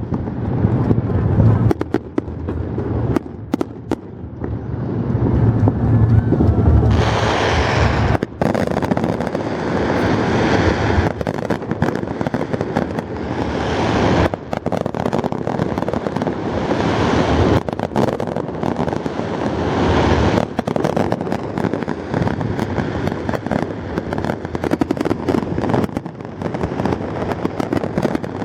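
Aerial fireworks going off in a rapid series of bangs, with deep booms in the first seconds and dense crackling from about seven seconds in.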